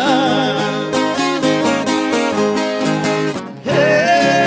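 Viola caipira playing a quick plucked instrumental phrase between sung verses of a moda de viola, breaking off briefly near the end before picking up again.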